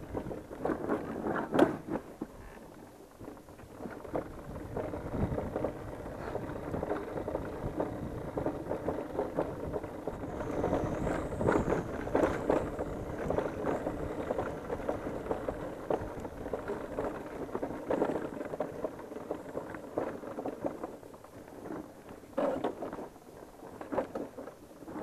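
KTM Duke 200's single-cylinder engine running at low speed on a rough dirt trail, with frequent knocks and rattles from the bike jolting over rocks. It is louder and busier through the middle and quieter near the end.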